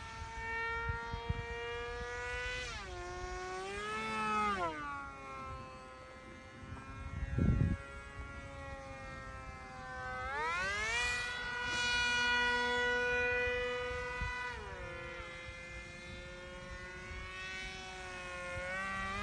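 Motor of an RC F-22 model airplane whining, its pitch rising and falling with throttle changes and holding high for a few seconds in the middle of the run. A single low thump comes about seven and a half seconds in.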